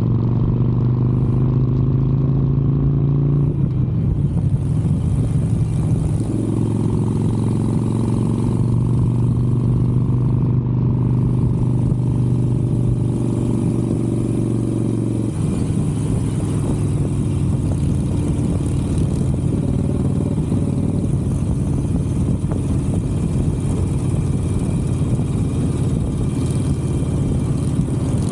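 Harley-Davidson Sportster 883's air-cooled V-twin engine running at a steady cruise. The engine note shifts about four seconds in and again near six, then turns rougher and noisier about fifteen seconds in.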